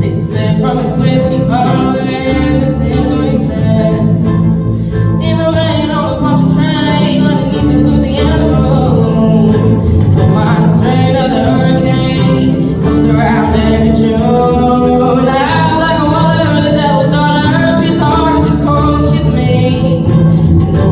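Country-style band music: a break between sung verses, with guitar and a bending melody line over a steady bass.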